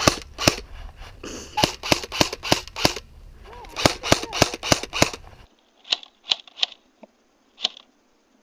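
Airsoft guns firing rapid shots, about three a second, in two strings broken by a short pause; after about five and a half seconds the shots turn sparse and scattered.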